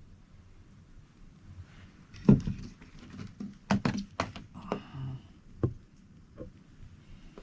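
A few sharp knocks and clicks of handling a knife and food while eating, the loudest about two seconds in and a quick cluster near four seconds.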